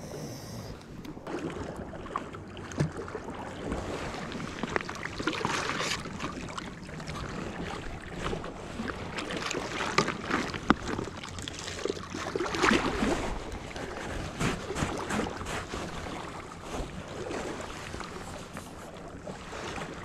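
Wind on the microphone and small waves washing against the rocky foot of a seawall, with scattered short clicks and knocks.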